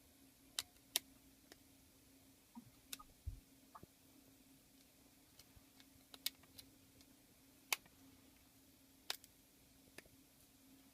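Faint, irregular clicks and ticks of a small screwdriver and tools against the iPhone 5's internal bracket and screws as the bracket screws are driven back in, over a faint steady hum.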